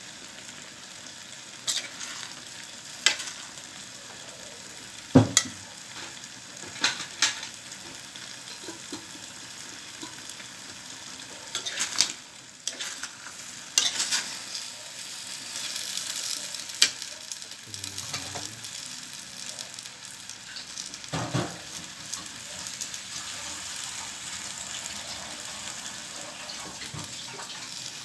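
Chop suey vegetables (cabbage, broccoli, cauliflower) sizzling as they stir-fry in a large aluminium wok. A metal spoon clanks and scrapes against the wok every few seconds as they are tossed, with the loudest knock about five seconds in.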